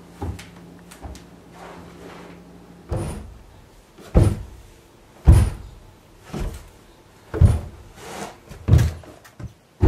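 A series of about ten dull thumps and knocks, spaced roughly a second apart and loudest around the middle.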